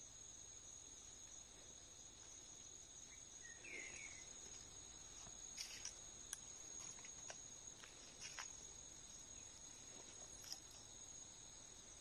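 Faint steady high-pitched insect trill, like crickets, with scattered light ticks and a brief chirp about four seconds in.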